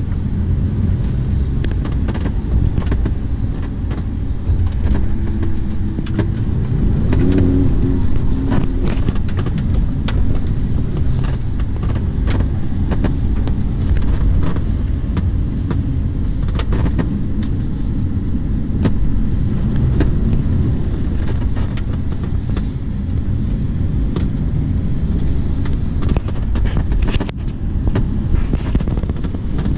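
Lamborghini Huracán's V10 engine and road noise heard from inside the cabin while the car is driven: a steady low rumble with scattered short knocks.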